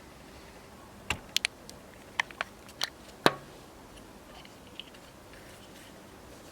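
About seven sharp clicks and light knocks of hard objects, bunched between one and three and a half seconds in, the last one the loudest with a short low ring after it.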